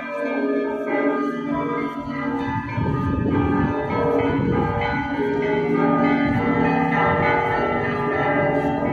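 Orthodox church bells being rung: many bells struck in quick succession, their tones overlapping and ringing on. A low rumble joins about two and a half seconds in.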